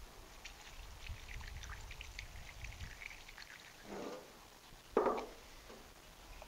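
PB Blaster penetrating oil poured from its can through a plastic funnel into a spark plug hole of a 1924 Fordson Model F engine, a fine patter for about three seconds. Then two short knocks, the second and louder about five seconds in.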